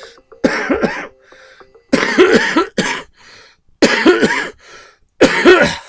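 A man coughing hard in four separate bouts, with throat-clearing rasps between them.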